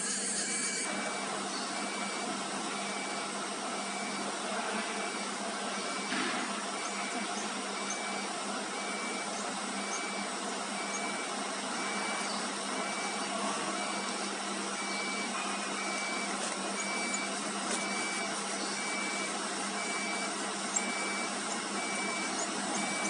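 Wood CNC router with vacuum table running steadily with an even machine hum, during its automatic tool-length setting. A faint short beep repeats about one and a half times a second throughout.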